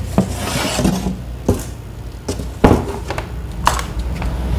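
Workshop handling sounds of a board and tools being set up for cutting: scattered knocks and clicks, the loudest a little over halfway through, with a brief scrape near the start.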